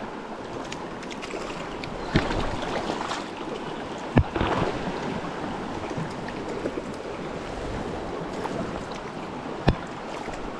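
Mountain stream water rushing steadily, swelling a little twice, with a few sharp clicks, about 2 s, 4 s and near 10 s in.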